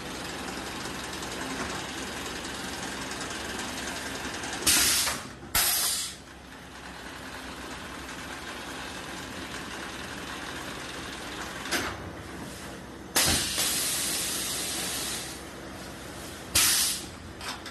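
Flame lamination machine running with a steady hiss, broken by several loud bursts of hissing. The longest burst lasts about two seconds.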